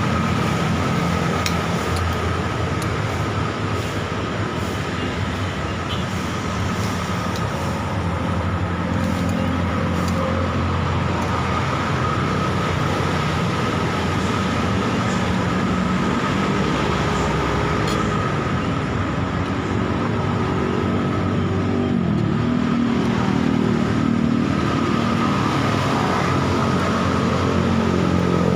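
Road traffic passing close by, steady engine and tyre noise from cars and motorbikes, with a thin steady high tone under it and a few light clicks.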